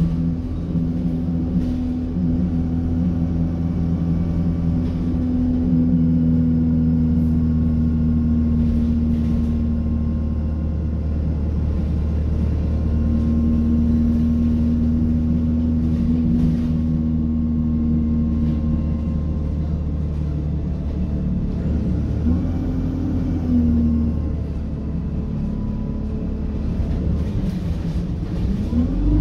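ADL Enviro 200 bus heard inside the saloon, its engine running with the radiator cooling fan spinning: a steady, hoover-like whine over a low engine rumble.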